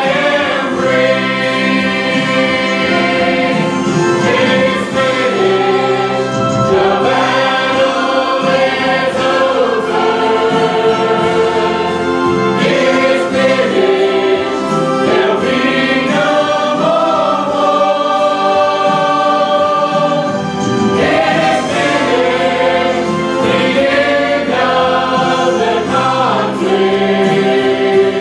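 Choir singing a gospel song, sustained and steady in level.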